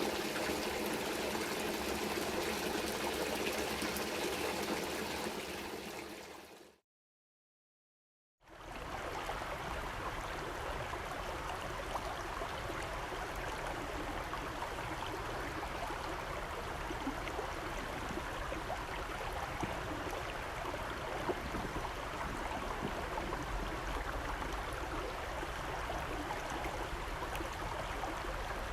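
Running water, a steady rushing flow that fades out about six seconds in. After a second and a half of silence, a similar steady flow of water takes over.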